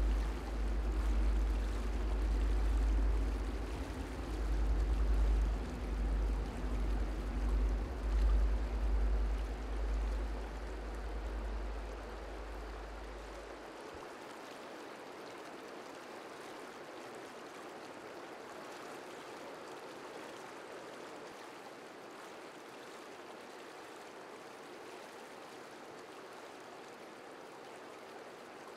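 River water rushing steadily over rocks. A low rumble swells and fades under it, then drops away about fourteen seconds in, leaving only the even sound of running water.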